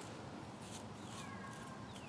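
Faint rustling of dry wood shavings being brushed together by hand, under two falling whistled bird calls: one about a second in and another at the very end.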